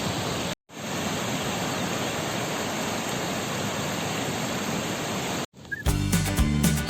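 Steady rushing of a waterfall, cut off to silence for an instant twice. Music begins near the end.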